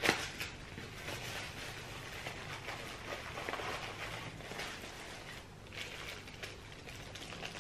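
Soft, irregular rustling and crinkling of wrapping being pulled off a packed item by hand.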